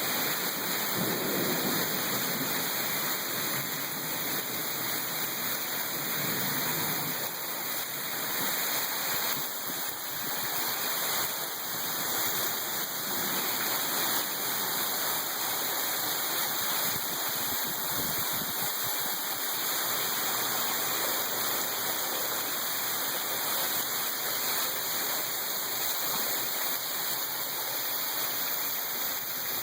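Heavy rain pouring down: a steady, unbroken hiss.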